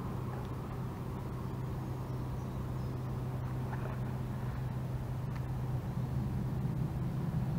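A steady low motor hum, getting slightly louder near the end.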